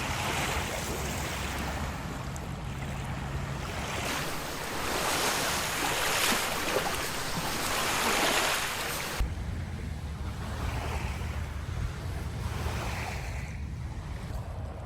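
Waves washing on a beach, with wind on the microphone. The sound changes abruptly about four and nine seconds in, with a louder, brighter wash of surf in between.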